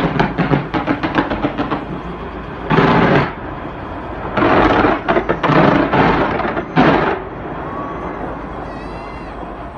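Fireworks exploding: a quick run of crackling bangs in the first two seconds, then heavy booming bursts around three seconds in and again from about four and a half to seven seconds, dying down to a low rumble.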